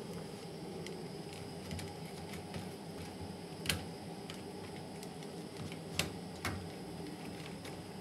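Light plastic clicks and knocks as a front-loading washing machine's door lock assembly is handled and pushed into place in the door opening, with three sharper clicks through the middle and later part.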